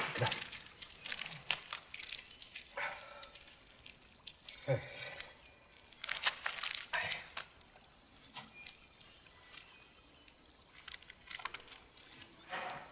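Candy wrapper crinkling and crackling in irregular fits as it is unwrapped by hand.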